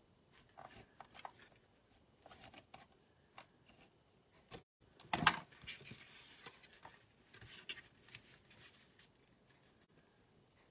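Paper and cardstock being handled and pressed onto a card base on a tabletop: scattered soft rustles and light taps, with one louder knock about five seconds in.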